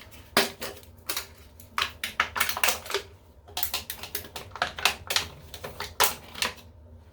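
Irregular run of sharp clicks and crackles from plastic being handled, as when a toilet wax ring is taken out of its plastic packaging.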